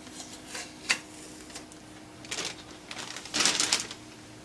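Packing tape just peeled off a printer being handled and crumpled: a sharp click about a second in, then short crinkling rustles, the loudest and longest near the end.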